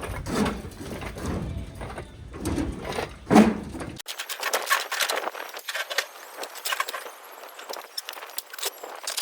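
Low, uneven handling noise; then, after an abrupt change about four seconds in, a run of light metallic clicks and clinks like keys jangling.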